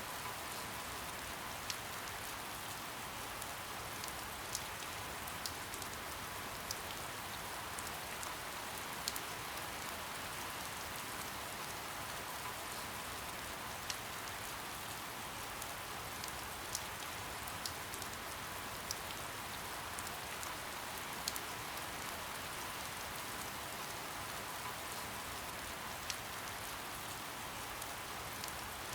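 Steady soft rain: an even hiss of rainfall with scattered louder single drops ticking on a surface.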